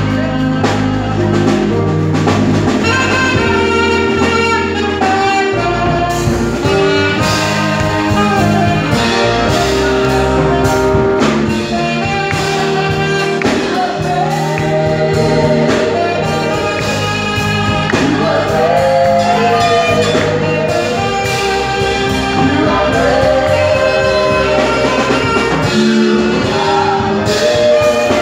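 A carol sung with instrumental accompaniment, the music continuing without a break at a steady loudness.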